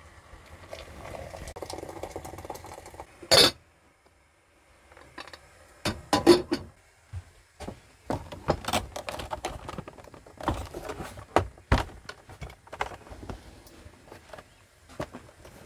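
Irregular knocks, clicks and clatters of things being handled and a cupboard door being worked in a caravan's small interior, with one loud sharp clatter about three seconds in.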